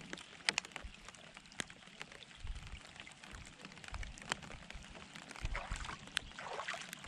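Water lapping and trickling around a plastic kayak, with a few sharp clicks and taps scattered through.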